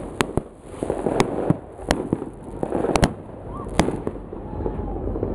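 Fireworks going off overhead: irregular sharp bangs, roughly one every second or less, over a continuous rumble and crackle of more distant bursts.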